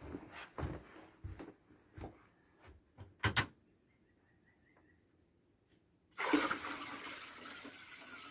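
A few scattered knocks, the loudest a double knock about three seconds in. After a silent gap, water starts pouring suddenly about six seconds in and runs on with a rushing sound, slowly fading.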